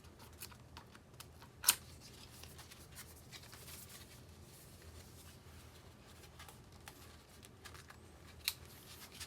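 Cardboard and paper packaging of a watch band being handled and opened: light rustling and ticks, with a sharp snap about a second and a half in and another near the end.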